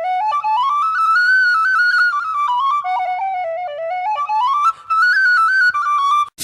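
Music: a solo flute-like melody played in single notes, climbing step by step and falling back twice, with no accompaniment.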